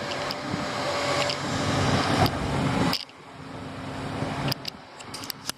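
Heavy construction machinery engine running, loud and steady, dropping away sharply about three seconds in; a few sharp clicks or knocks follow near the end.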